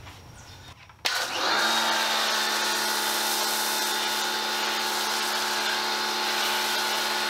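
A Teande 2300 PSI electric pressure washer starts suddenly about a second in. It runs steadily: the pump and motor hum under the hiss of an MJJC foam cannon spraying thick foam. It stops near the end.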